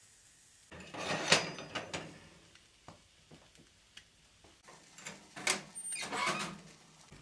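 A knife cutting an onion over a frying pan, with the pieces dropping into the pan: short scrapes and clicks in two clusters, one about a second in and another near the middle-to-end.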